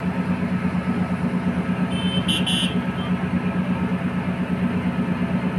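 Motor vehicle engine running steadily, a low hum that pulses rapidly, with a short high-pitched chirp about two seconds in.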